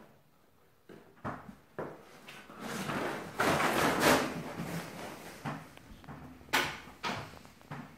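A cat stuck in a bag scrambles across a tile floor and drags the bag along: rustling and scraping, loudest about three to four seconds in, with a few sharp knocks before and after.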